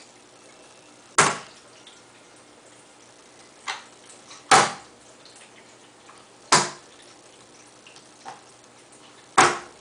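A baby's hands slapping a thin layer of water on a plastic high-chair tray: four sharp wet slaps a second or more apart, with a couple of lighter pats between them.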